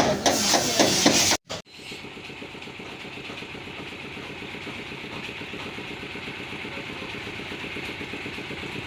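A small engine idling steadily with a fast, even beat. It starts after a sudden cut about a second and a half in.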